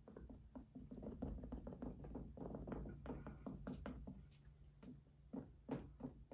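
Faint, quick, uneven taps and dabs of a painting tool working paint into a textured canvas, with a couple of louder knocks near the end.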